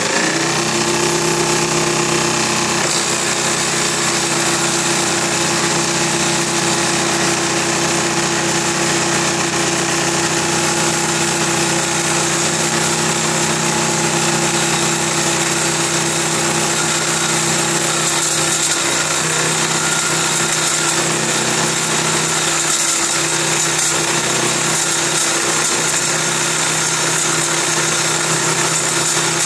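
Table saw switched on as the sound begins, then running steadily with a 7 1/4 inch circular-saw blade cutting into a spinning wooden bowl blank held in a jig, hollowing out the bowl's inside cup. A steady motor hum, with a harsher cutting hiss coming in about three seconds in as the blade bites into the wood.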